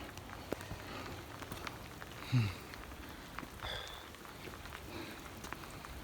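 Steady rain falling, with scattered sharp ticks of drops striking close by. About two seconds in there is a short, low sound that falls in pitch.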